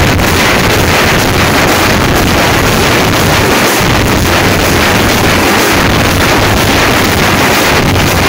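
Many Tamil parai frame drums beaten with sticks together, a dense, continuous din so loud that it overloads the microphone and blurs the separate strokes into distorted noise.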